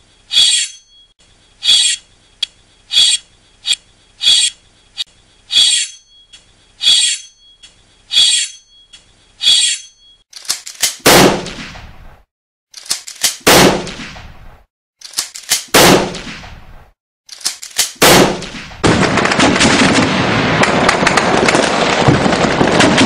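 Gunfire sound effects: a regular run of sharp, ringing cracks about one every 0.7 seconds, then four heavy shots with long echoing tails a couple of seconds apart. About nineteen seconds in, continuous rapid machine-gun fire starts.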